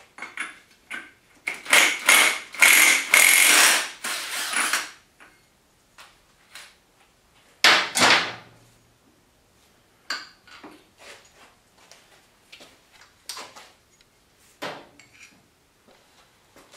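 Hand tools working on a Kawasaki KX250F engine during teardown: scattered metal clicks and clinks, with a louder stretch of rapid clicking lasting a few seconds about two seconds in and one loud clank about halfway through.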